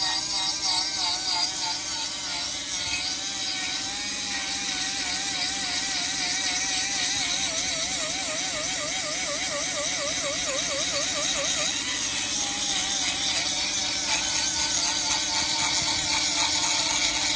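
Hitto HT-7032 1/4-inch air die grinder running steadily at speed: a constant whine under a loud, even hiss of air.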